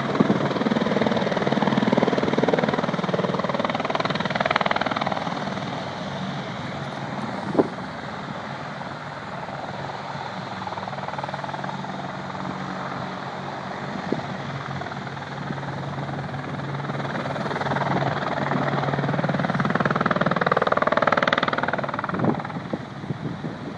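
AH-64D Apache Longbow helicopter running, its rotors and twin turbine engines giving a steady hum that swells at the start and again about twenty seconds in. A single sharp knock sounds about seven seconds in.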